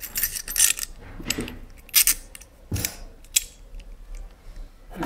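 Small metal screws clicking and scraping as they are pushed by hand through a wire fan grill into the mounting holes of a 40 mm cooling fan. Light, irregular clicks, the sharpest about two seconds in, with a dull knock soon after.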